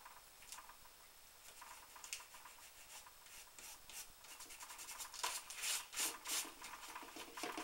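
Fingers rubbing over a glued paper die-cut to press it onto cardstock, a faint dry scraping of skin on paper that becomes louder, in quick strokes, about five seconds in.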